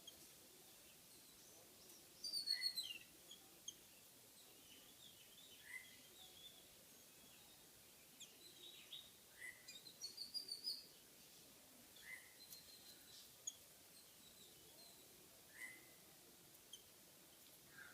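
Small birds calling faintly: a short call repeats every three or four seconds, with brief runs of rapid high chirps about two seconds in and again about ten seconds in.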